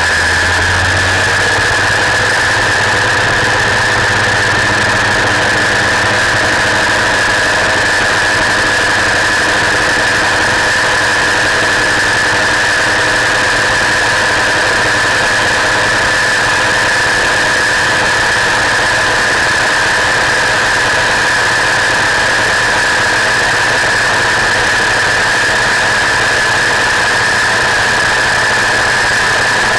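Gyroplane's engine and propeller running at takeoff power through the takeoff roll and into the climb, with a steady high-pitched whine over it. The low engine note changes about a second in as power comes up, then holds steady.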